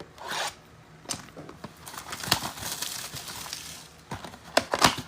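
Plastic wrapping crinkling and tearing as a sealed mega box of trading cards is opened and its cardboard handled. There are short swishes, a longer crinkling stretch in the middle, and a few sharp clicks near the end.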